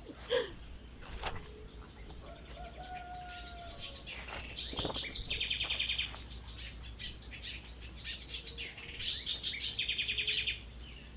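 Tropical birds calling and chirping, with two bursts of quick trilled notes, over a steady high-pitched insect drone.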